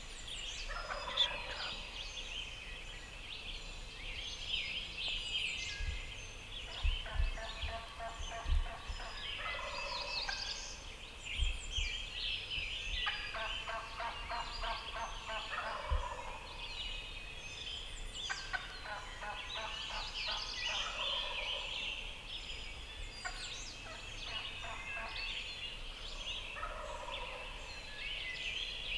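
Wild turkey gobbler gobbling again and again, a rattling gobble every few seconds, over a steady chorus of small songbirds chirping. A few low thumps come in the first half.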